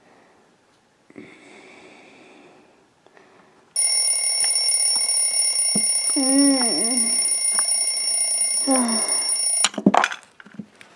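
An electronic alarm clock ringing loudly and steadily, starting suddenly about four seconds in and cutting off abruptly near the end, followed by a few sharp knocks. A drawn-out voice sounds over the alarm twice.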